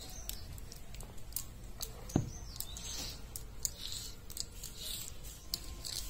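Fingers scraping and wiping wet garlic paste off a stone grinding slab (sil-batta), making small scratchy scrapes and clicks, with one dull stone knock about two seconds in as the stone muller is set down on the slab.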